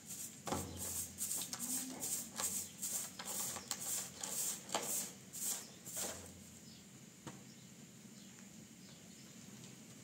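Straw broom swept in quick short strokes across a hard floor, a dry swish with each stroke, about two or three a second. The sweeping stops about seven seconds in.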